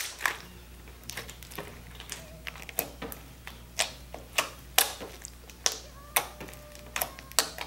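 Glossy, thick slime being squeezed and pressed by hand, giving off irregular sharp clicks, about two a second: the slime's "clicky" sound.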